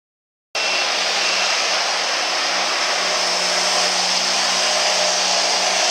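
Turbocharged diesel pickup engine held at full throttle while pulling a weight sled: a steady, unbroken drone with a strong high hiss over a low hum. It begins after a moment of silence about half a second in.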